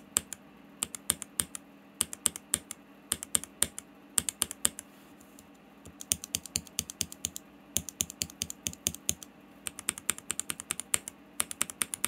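KTT Red Wine linear mechanical keyboard switches (POM stem, 43 g spring, polycarbonate top housing) pressed over and over in a small switch tester, giving sharp, separate clacks. The presses come in irregular runs and get quicker from about six seconds in.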